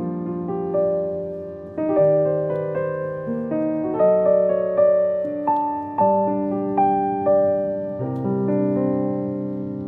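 Background piano music: a slow, gentle melody with notes struck about every second and left to ring.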